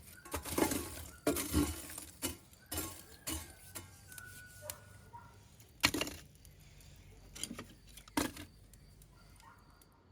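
Clinking and knocking of kitchenware or dishes being handled during cooking: a run of sharp knocks and clatters, one leaving a short ringing tone, with two louder knocks about six and eight seconds in.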